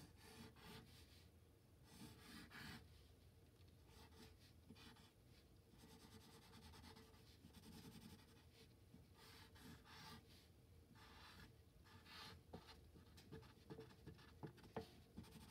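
Faint scratching of a pencil drawing on paper, in many short strokes.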